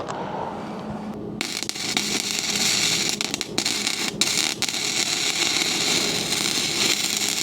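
Electric arc welder crackling as a seam on a shredder hopper is tack-welded, starting about a second and a half in, with a few brief breaks in the arc.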